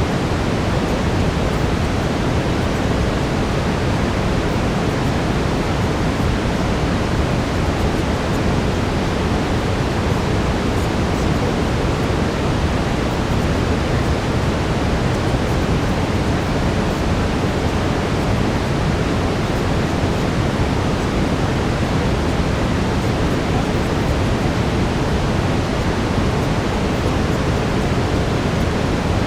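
Steady synthetic brown noise: an even, deep rushing hiss with no changes, like a distant waterfall.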